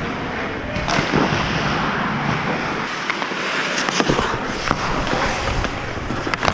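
Ice hockey skates scraping and carving on rink ice in a steady hiss, with a few sharp clacks of sticks and puck, the first about a second in and more around four seconds in.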